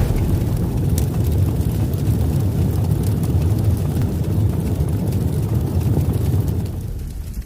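A loud, steady low rumble that fades away near the end.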